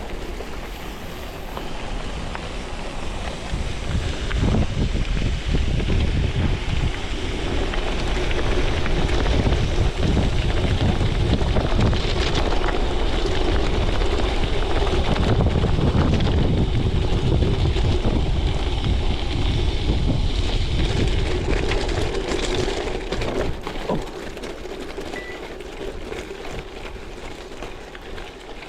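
Wind buffeting an action camera's chest-mounted microphone while a gravel bike rolls over a gravel road. It is loudest through the middle and eases off near the end.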